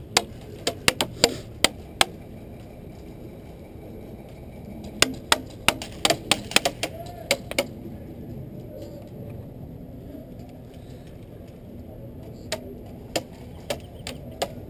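Airsoft guns firing in rapid irregular bursts of sharp snapping clicks, with BBs smacking into surfaces. There is a flurry at the start, a denser volley about five seconds in, and a few more shots near the end.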